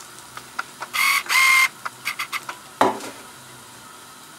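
Zucchini pancake frying in oil in a pan with a steady sizzle. About a second in come two short, high squeals, and a single knock a little before three seconds.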